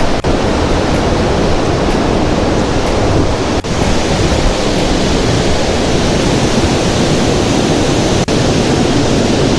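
A waterfall close by: a loud, steady rush of falling water.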